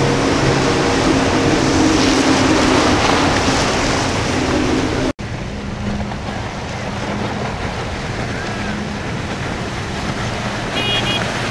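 Triple outboard motors on a center-console boat running at speed, with the hiss of spray and wash off the hull. About halfway the sound drops out for an instant, and a second center-console boat's outboard is heard running more quietly over choppy water.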